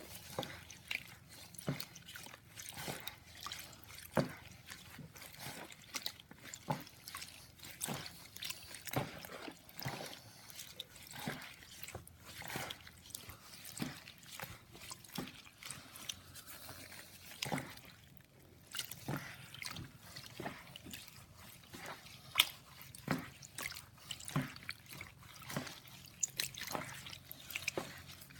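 Wet, sticky squelches and small clicks at an irregular pace as homemade glue slime is stirred and kneaded while it forms.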